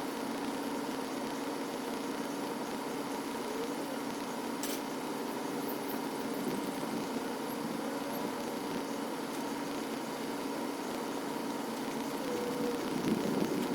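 An engine running steadily at idle, with a single sharp click about five seconds in.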